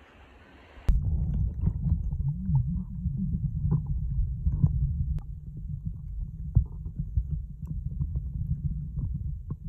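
Sea water heard through a phone microphone dunked underwater: a sudden thump as it goes under about a second in, then a muffled low rumble of moving water with small clicks and knocks. Before that, faint lapping at the surface.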